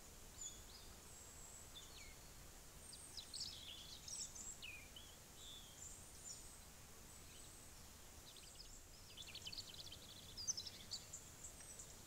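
Faint birdsong outdoors: scattered high chirps and short down-sweeping calls, with a quick trill about nine to ten seconds in, over a low steady background hiss.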